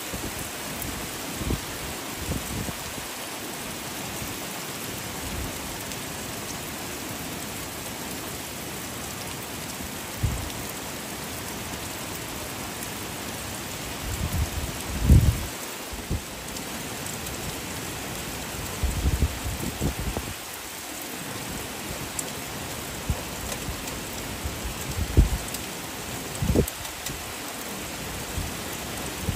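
Steady rain falling on trees and foliage, an even hiss throughout. Gusts of wind now and then add short low buffets, the strongest about halfway through.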